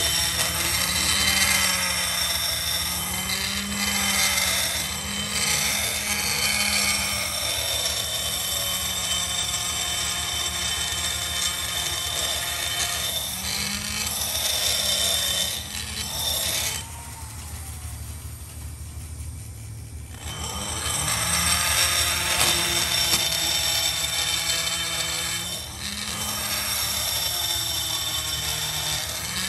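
Small hand-held rotary grinder running, its bit grinding inside the ports of a motorcycle cylinder being ported. The grinding fades out for a few seconds a little past the middle, then starts again.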